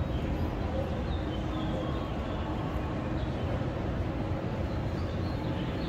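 Steady outdoor background noise with a low rumble and no clear single event, with a few faint short high chirps over it.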